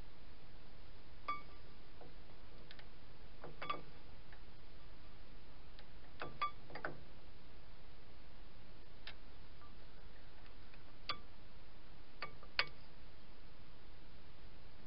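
Scattered light metallic clicks and short ringing clinks as a brake pad is worked into a dual-piston disc brake caliper on a Ford truck's front wheel. The sharpest click comes about three-quarters of the way through, over a steady hiss.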